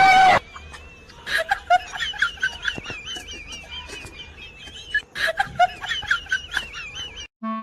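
A bird chirping and warbling in rapid, high, wavering trills, with short sharp clicks among them; it stops suddenly near the end.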